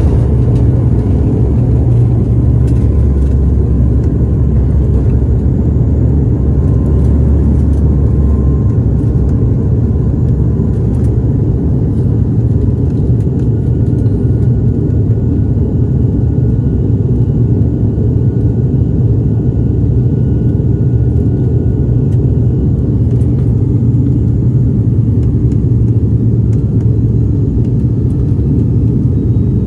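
Airliner cabin noise during takeoff and initial climb: a loud, steady rumble of jet engines and airflow. The deepest part of the rumble eases about eight seconds in, as the aircraft leaves the runway.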